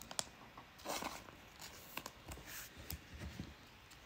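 Faint rustling and light clicks of baseball trading cards being shuffled and slid between the hands, with a short louder rustle about a second in.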